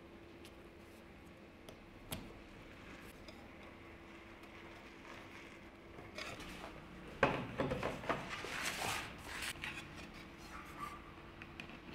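Plywood parts being handled and slid across the bench and the table saw's metal top: a light click about two seconds in, then a few seconds of rubbing and scraping from about seven seconds in, over a faint steady hum.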